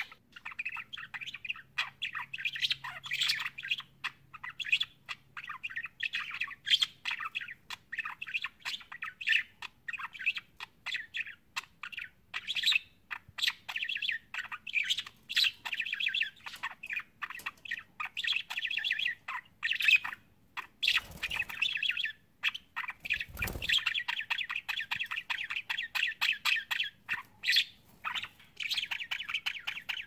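Budgerigars chirping and warbling: a steady stream of quick, high chattering notes from several birds.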